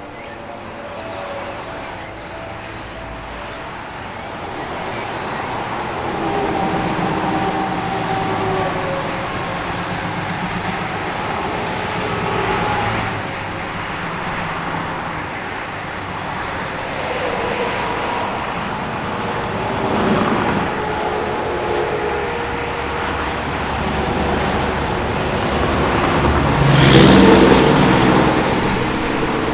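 Steady roar of dense highway traffic on I-95, cars and trucks passing continuously with engine and tyre noise. One heavy vehicle passes louder near the end.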